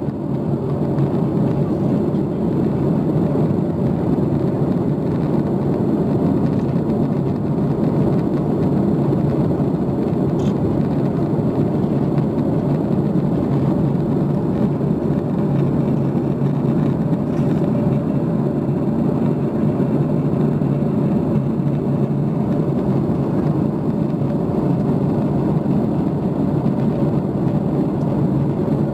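Steady in-flight cabin noise of a Boeing 737 MAX 8 heard from a window seat: an even rush of engine and airflow noise with a faint steady hum, unchanging throughout.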